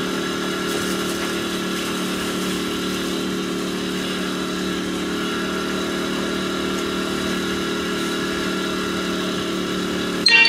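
An engine idling steadily at an even pitch. Just before the end a chime rings out suddenly.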